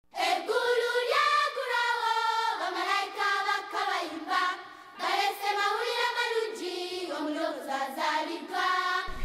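A group of children singing a melody together. There is a short break for breath about four and a half seconds in.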